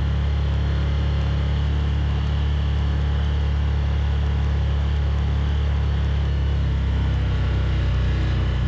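Side-by-side utility vehicle's engine running steadily as it drives over grass, a low steady drone whose note shifts slightly about seven seconds in.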